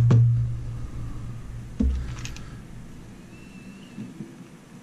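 Plastic case of an ESR meter being handled and fitted back together: a few clicks and knocks, with a low hum that fades away over the first couple of seconds.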